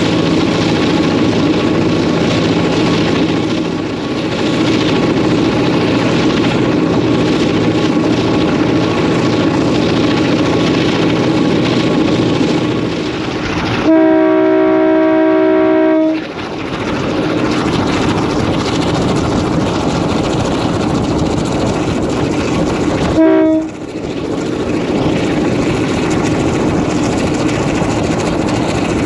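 EMD 567-series two-stroke diesel locomotive engine running steadily, heard from the locomotive's roof. About halfway through, a multi-chime locomotive air horn sounds a chord for about two seconds, and near the end of the last third it gives one short toot.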